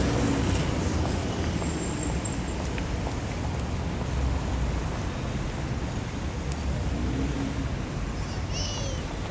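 Busy city street traffic: a steady low rumble of passing cars and engines. A short high chirp cuts through near the end.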